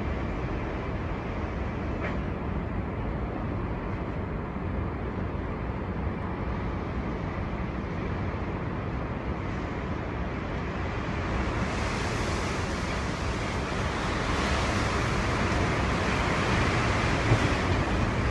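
Storm wind blowing hard and steadily with a deep rumble, then a stronger gust building about two-thirds of the way through that adds a loud rushing hiss. A brief knock sounds near the end.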